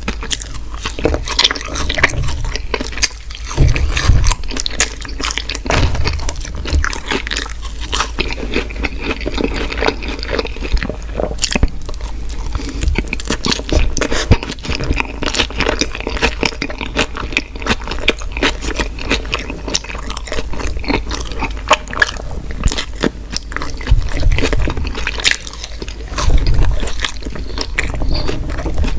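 Close-miked chewing and mouth sounds of a person eating: a dense, continuous run of small clicks, with a few low thumps now and then.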